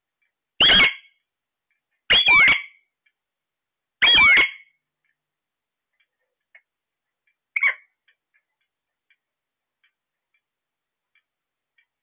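Caged parakeets giving three loud, shrill calls that sweep up and down in pitch, about one and a half seconds apart. A shorter, softer call comes a few seconds later, with faint chirps between.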